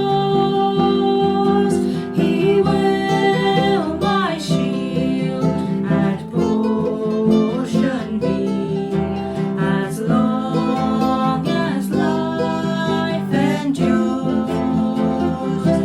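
A song sung to acoustic guitar: a voice holding long notes over strummed chords.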